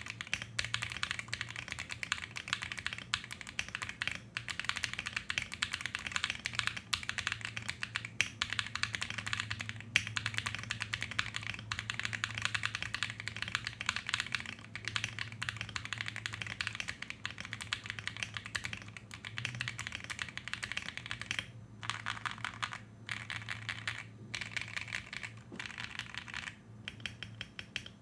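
Typing on a QK65 mechanical keyboard with KTT Baby series Pink switches, a UHMWPE plate, plate foam and a silicone bottom: a fast, continuous stream of keystrokes. In the last quarter it breaks into short bursts with brief pauses. A faint low hum sits underneath.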